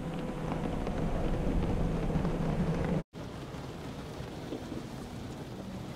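Coleman Water Wizard 2.0 touchless car wash applying triple foam, heard from inside the car's cabin: a steady rush of spray hitting the body and glass over a low steady hum. The sound cuts out for an instant about three seconds in and then goes on a little quieter.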